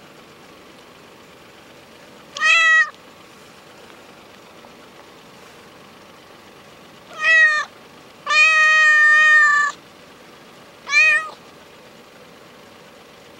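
Orange tabby cat meowing four times: three short meows and one long, level meow of about a second and a half about eight seconds in. It is a hungry stray begging for food.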